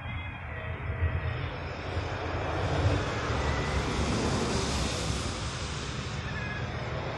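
Rushing noise of a passing motor, swelling to its loudest about halfway through and then fading, over a low rumble.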